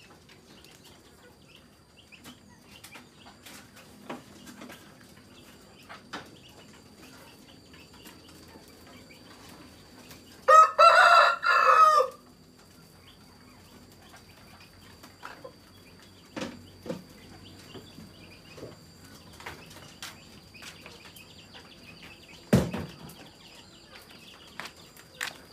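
A rooster crowing once, a loud cock-a-doodle-doo of about a second and a half in three joined parts, about eleven seconds in. Scattered faint clicks and knocks around it, and a sharper thump near the end.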